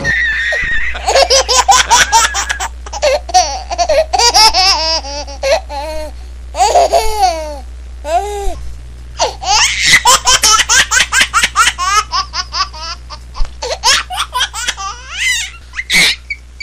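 Over-the-top laughter sound effect edited in as a meme: loud, rapid 'ha-ha-ha' laughing in several runs with short breaks, the pitch swooping up and down, over a steady low hum.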